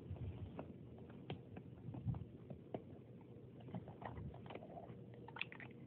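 Faint rustling of bedding with scattered soft clicks and a few dull thumps as a Labrador puppy roots and noses around in a duvet.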